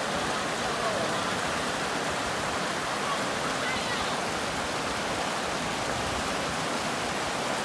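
Fast-flowing river rushing over rocks, a steady loud rush of water.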